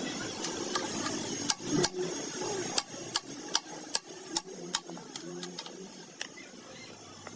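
A string of irregular sharp clicks and taps, about a dozen, thinning out after about five seconds: hand tools knocking against gearbox parts during a truck gearbox repair.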